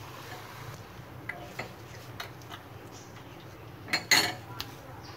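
Water simmering in a non-stick frying pan with chopped garlic and carrot, giving faint irregular ticks over a steady low hum. A brief clatter of a utensil comes about four seconds in.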